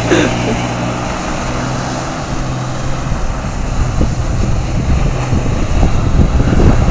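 Toyota Tacoma pickup's engine running under load as the truck spins donuts in loose sand, a steady engine note at first that gives way to a rougher, uneven rumble, growing louder as the truck circles closer.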